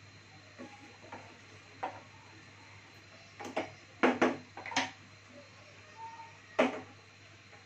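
A cooking spoon knocking against the rim and sides of a metal curry pot: a handful of sharp clanks, the loudest a cluster about four seconds in and a single one near the end. A low steady hum runs underneath.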